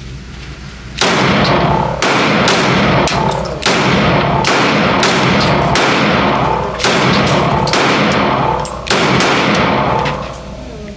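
Gunshots at a shooting range: a string of single shots starting about a second in, roughly one a second at uneven intervals, each with a long echoing tail.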